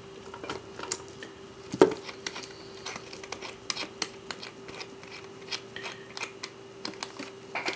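Small metallic clicks and scrapes of a case-back wrench and watch case shifting in a plastic-pinned case holder while the back of a Seiko quartz chronograph is opened. The clicks are irregular, with a louder click about two seconds in, over a faint steady hum.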